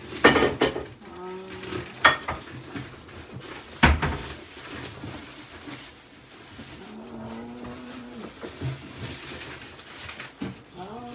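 Kitchen clatter: a few sharp knocks of dishes and cupboard doors in the first four seconds, the loudest about four seconds in. Later a steady pitched hum sounds twice, each time for about a second and a half.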